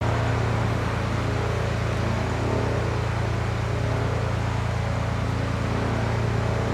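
Steady machine hum: a strong low drone with even hiss over it, cutting in suddenly and holding unchanged.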